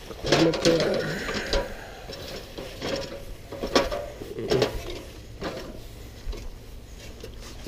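Aluminium extension ladder clanking and creaking as someone climbs its rungs, a few irregular knocks spread through the climb.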